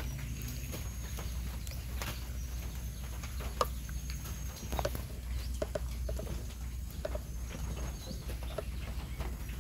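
Outdoor farm ambience: a steady low rumble with scattered light knocks, and a few short animal calls, probably fowl, between about the middle and near the end.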